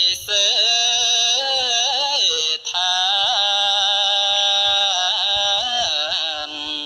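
Buddhist monk's chant sung into a microphone: long held notes that waver and slide in pitch, with a short break about two and a half seconds in.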